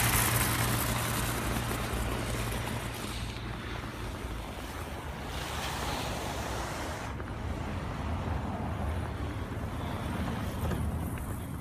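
Wind on the microphone over a steady low engine hum, with the noise of a passing vehicle fading away over the first few seconds.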